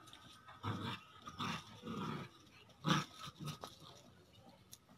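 Bully kutta (Indian mastiff) puppies growling in short bursts as they play-fight, about five, the loudest about three seconds in.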